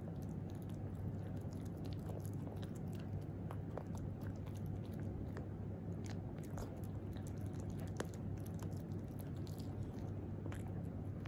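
Italian greyhound puppy chewing the last piece of a dog dental chew: irregular small crunches and clicks of teeth on the chew, over a steady low hum.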